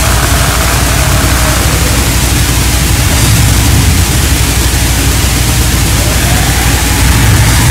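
Raw, lo-fi black metal: a dense wall of heavily distorted guitar over a constant low drum and bass rumble, so noisy it sounds close to static.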